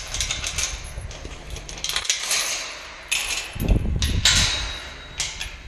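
Light clanks and rattles of a metal pipe-and-wire-mesh horse gate being handled, with scraping and rustling right at the microphone and a dull bump about three and a half seconds in.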